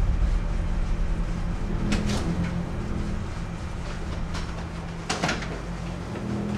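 A wooden front door being unlatched and opened: sharp clicks of the latch and handle about two seconds in, then a couple of knocks just after five seconds, over a steady low rumble.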